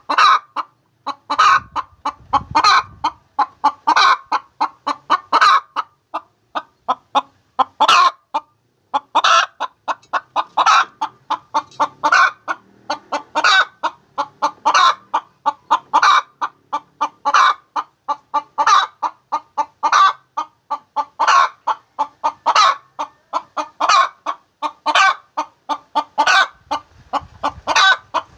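Hen cackling her egg-laying song: quick runs of short clucks, each capped by a longer, louder squawk, repeating about every second and a half.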